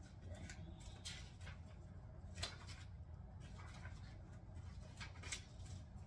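Pages of a book being turned and handled: several brief papery rustles and flicks, the sharpest about two and a half seconds in, over a steady low hum.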